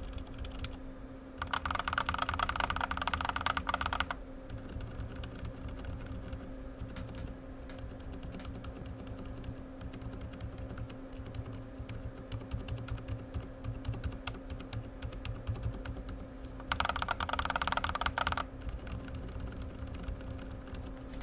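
Typing on a mechanical keyboard fitted with Outemu Silent Peach switches, giving soft, muted keystrokes. Twice, about a second in and again near the end, the typing becomes faster and louder for a couple of seconds.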